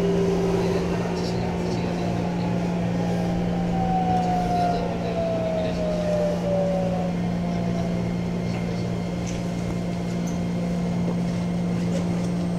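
Inside a JR 205 series 5000 electric train, the Toyo IGBT-VVVF inverter and traction motors whining in tones that fall in pitch, with a clear downward glide about four to seven seconds in, over a steady air-conditioning hum and running noise.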